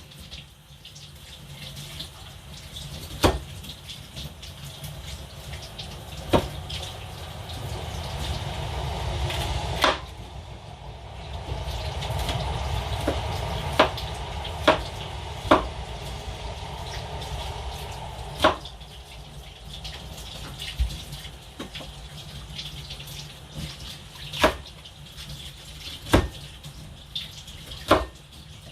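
Water running at a kitchen sink, swelling for a while in the middle, with about a dozen sharp knocks and clinks spread through it.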